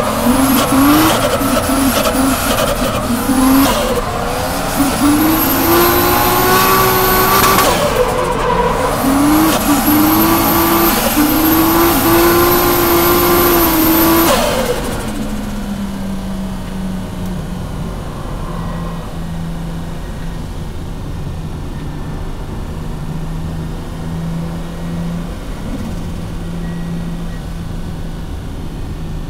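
Toyota JZX drift car's straight-six engine, heard from inside the cabin, revving hard and rising and falling in pitch with tyres squealing through a drift. About halfway through the revs drop off, and the engine settles to a steady, quieter, low drone for the rest.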